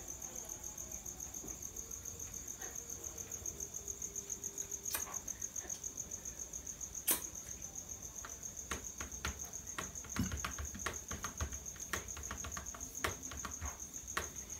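Cricket chirping steadily in a high, evenly pulsing trill, with a few scattered sharp clicks, several in quick succession in the second half.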